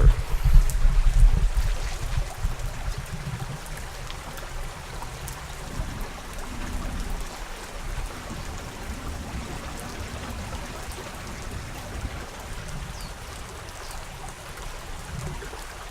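Steady rain falling, an even hiss of water. A low rumble on the microphone runs underneath and is loudest in the first two seconds.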